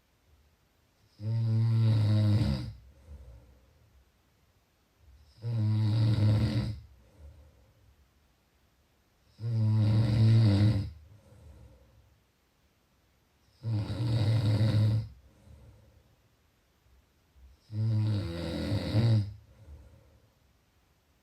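Snoring: five loud, low buzzing snores about every four seconds, each lasting about a second and a half, with faint breaths between them.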